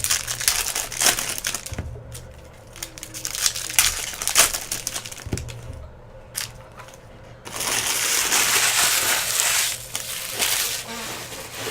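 Foil trading-card pack wrappers crinkling as packs are torn open and crumpled, with scattered sharp clicks and taps of cards being handled. A louder, continuous stretch of crinkling comes about seven and a half seconds in and lasts about three seconds.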